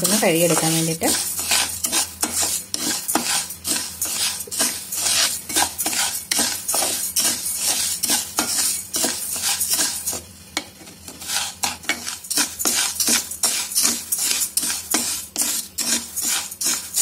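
A spatula stirring dry raw rice and split moong dal as they dry-roast in a pan: quick repeated scraping strokes with the grains rattling and hissing, easing off briefly about ten seconds in.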